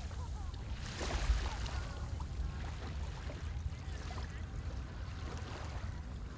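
Beach ambience: wind rumbling on the microphone over small waves lapping at the shore, with faint distant voices.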